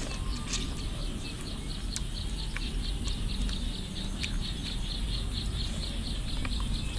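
A small animal's high chirp repeated steadily, about five chirps a second, with a few sharp clicks of a metal spoon against a bowl.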